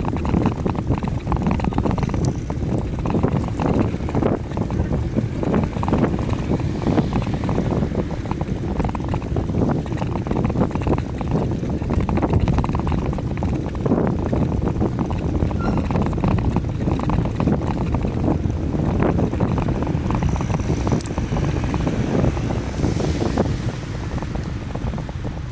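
Wind buffeting the microphone of a camera on a moving bicycle: a dense low rumble with irregular gusts. It eases near the end as the bike slows to a stop.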